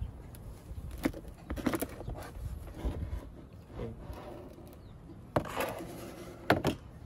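Hard plastic knocks and scrapes as an electric fan's plastic base is handled and turned over, with the two sharpest knocks about five and a half seconds in and again near the end.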